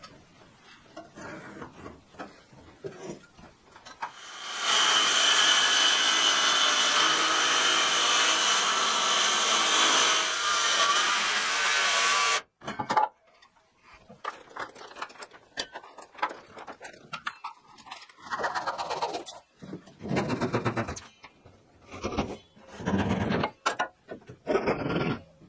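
Cordless circular saw cutting through wooden wall boards, running steadily for about eight seconds and stopping abruptly. After it come shorter, irregular bursts of sound.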